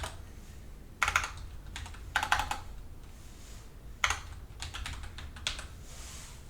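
Computer keyboard being typed on in short bursts of a few keystrokes each, over a low steady hum.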